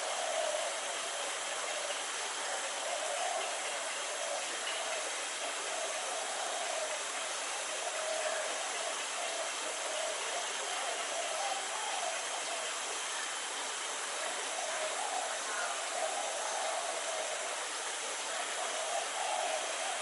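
Steady, even outdoor hiss with no distinct events, under a faint wavering murmur.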